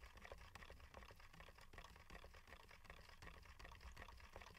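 Faint, quick ticking and scraping of a stir stick against the inside of a plastic cup as resin is mixed, several light ticks a second over a low room hum.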